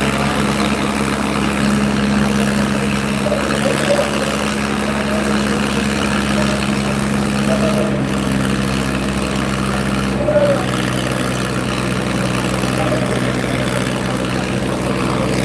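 Diesel engines of a Sonalika and a Farmtrac tractor running steadily at full throttle under heavy load as the two hitched tractors pull against each other, the engine note shifting about ten seconds in.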